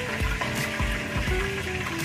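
Background music with held notes and a regular beat, over a steady hiss of hot frying oil in a pot of deep-fried copper rockfish.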